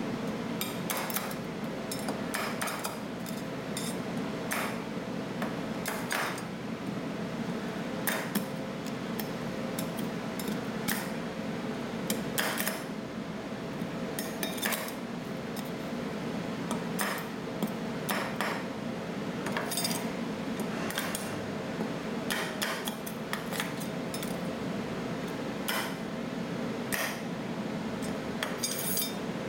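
Metal spatulas chopping and scraping on the steel cold plate of a rolled ice cream pan, with irregular clacks and taps over a steady hum.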